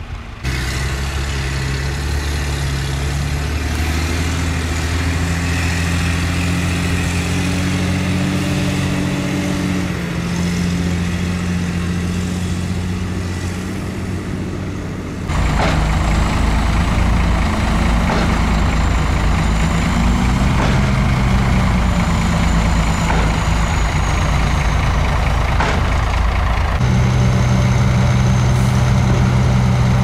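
Heavy dump truck diesel engine running steadily, its pitch wavering while the raised bed tips and unloads dirt. The engine sound changes abruptly around the middle and again a few seconds before the end.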